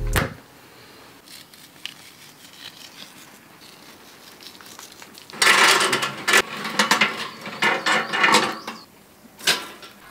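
A thump at the start, then from about halfway loud, irregular metal clattering and clanking as the steel wheel crank of a grill is turned and its grate moves.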